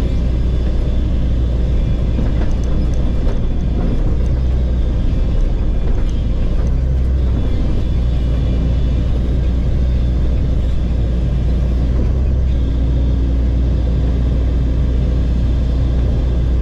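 Excavator's diesel engine running steadily while working, heard from inside the cab: a constant low drone. A higher steady hum joins for about two seconds after roughly twelve seconds.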